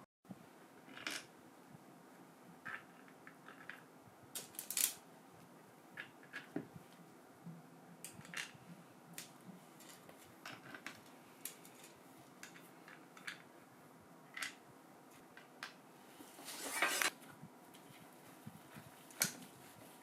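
Small hard parts being handled on a workbench: scattered light clicks and taps, with a longer scraping rustle near the end.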